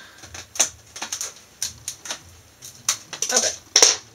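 Plastic blister packaging being cut open with small scissors and handled: irregular sharp snips, clicks and crackles, with the loudest crackle a little before the end.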